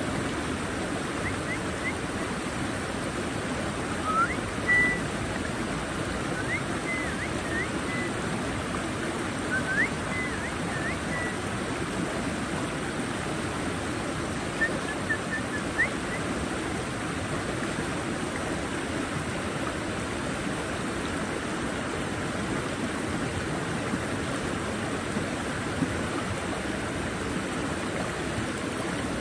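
Stream water flowing steadily, with a few short, high bird chirps now and then in the first half.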